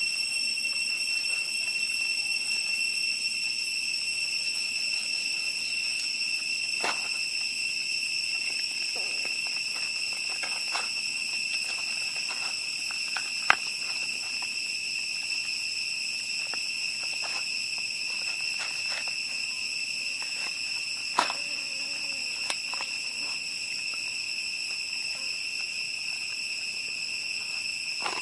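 Steady high-pitched chorus of insects droning without a break, with a few sharp clicks and knocks scattered through, the loudest about halfway.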